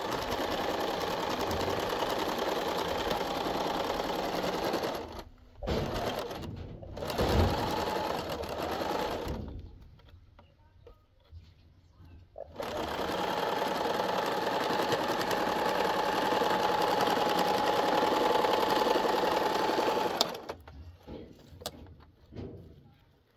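Small portable electric sewing machine stitching in runs: a few starts and stops in the first nine seconds, a pause of about three seconds, then one long steady run of about eight seconds that stops suddenly.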